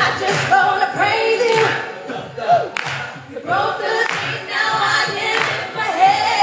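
Small gospel vocal ensemble singing in harmony over a steady low beat.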